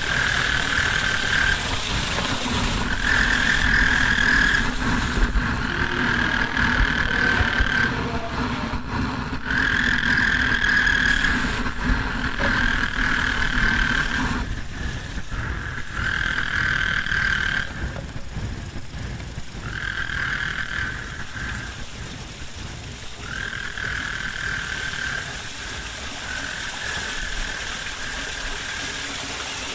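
Experimental noise music: held high-pitched tones repeat every couple of seconds over a hissing, rumbling bed, and a low drone drops out about halfway through.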